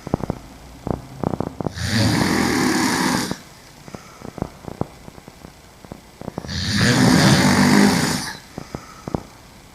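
A woman snoring while sleeping on her back: two long, rough snores about four and a half seconds apart, with faint clicking sounds in the quiet between them.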